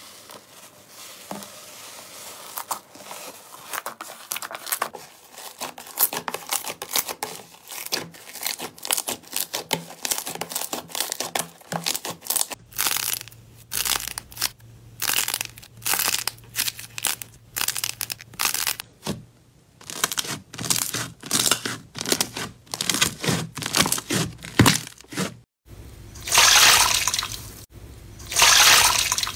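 Hand-handling sounds from a run of slime and clay clips. First, soft crackling as fingers stroke a fluffy rainbow slime. Then a series of crisp crinkling crackles as a metallic coating is peeled off clay balls. Near the end come two loud squelching, sloshing squeezes of a water-soaked block in a bowl of water.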